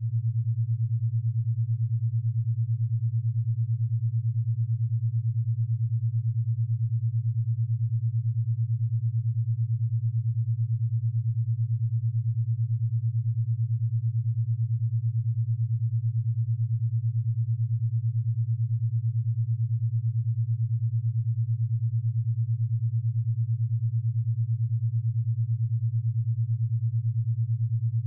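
A low, steady drone: a single deep hum with a fast, even wobble in loudness, made as a dark 'alone in the basement' ambience sound effect.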